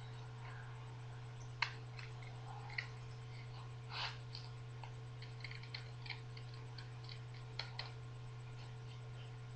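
Scattered light clicks and taps, irregular and a few seconds apart, over a steady low hum.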